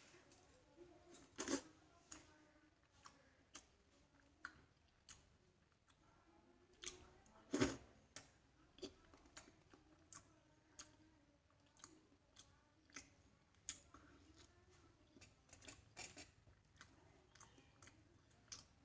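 Soft eating sounds: a man chewing and breaking pieces of pitha rice cake with his fingers, heard as scattered small clicks and mouth smacks, with a louder one about a second and a half in and another near eight seconds.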